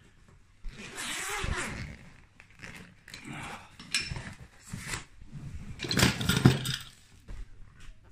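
Rustling and scraping of a black fabric shoulder bag being opened and rummaged through by hand, in irregular bursts, loudest about six seconds in.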